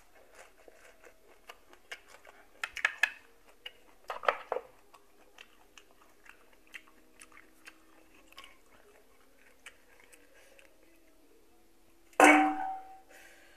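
A person chewing boiled golden apple snail meat close to the microphone, with many small mouth clicks and a couple of louder bites a few seconds in. Near the end comes a single loud clatter with a short ring.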